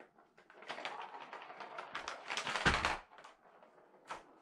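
Catit Senses Super Roller Circuit, a plastic track toy with a ball inside, clattering as a cat paws at it: a quick run of plastic clicks and rattles lasting about two and a half seconds, ending in a heavy knock as the track is shoved across the carpet. One more short click near the end.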